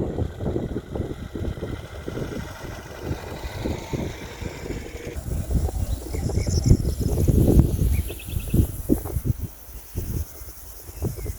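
Irregular low rumbling and thumping, loudest about two-thirds of the way through, with insects trilling high above it from about halfway on.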